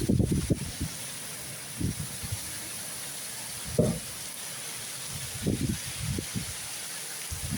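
Steady hiss of heavy rain falling, broken by several short, irregular low bumps.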